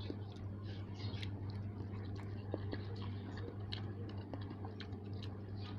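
Close-miked mouth sounds of a person chewing noodles: many soft, wet clicks and smacks, over a steady low hum.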